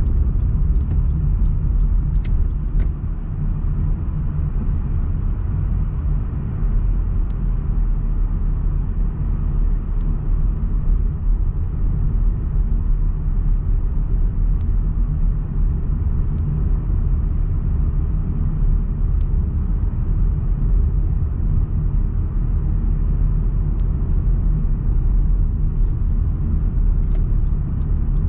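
Car driving along a city street, heard from inside the cabin: a steady low rumble of engine and tyre noise.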